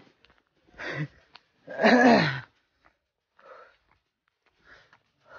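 A man out of breath from a steep uphill climb: a short breathy vocal sound about a second in, then a longer sigh that falls in pitch around two seconds in, followed by faint breaths.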